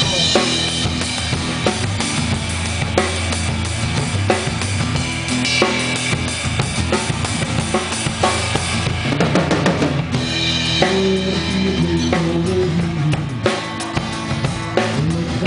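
Drum kit played with a live band: bass drum, snare and rimshots in a steady rock beat under sustained bass and guitar notes, with no singing.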